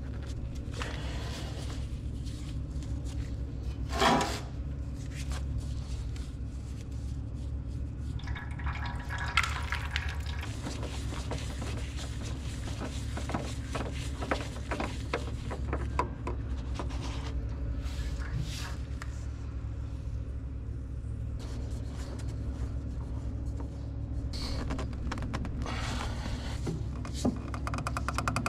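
Engine oil trickling from a Kubota skid loader's drain line into a pan, draining slowly, over a steady low hum. Scattered clinks and scrapes of hand tools, with one sharp clank about four seconds in.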